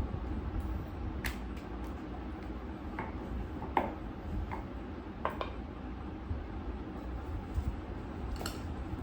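Rolling pin rolling out dough on a rolling board: a steady low rumble with scattered light clicks and knocks.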